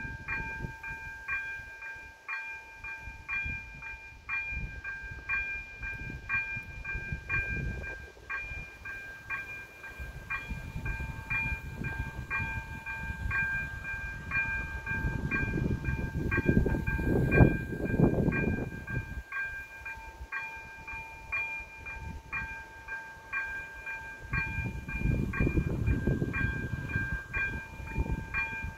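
Electronic level-crossing warning bell ringing steadily, a bright tone struck about twice a second, while the crossing's red lights flash for an approaching train. A low rushing noise swells up over it about halfway through, and again near the end.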